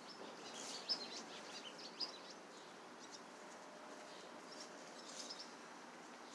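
Birds chirping in short high calls, in a cluster about a second in and again near five seconds, over a faint steady outdoor background hiss.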